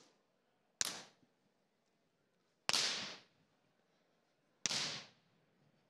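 A whip cracked lightly, three sharp pops about two seconds apart, kept deliberately soft to get a young, unstarted filly used to the sound.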